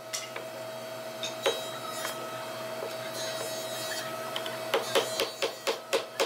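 Wood knocking on wood: a few scattered knocks as wooden parts are handled, then about two-thirds of the way in a quick, even run of taps, about four a second, as a wooden upright is driven into its joint with a block of wood.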